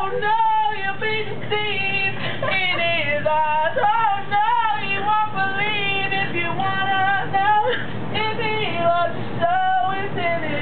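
A woman singing solo in a high voice, holding notes with a wide, wavering vibrato and sliding between pitches.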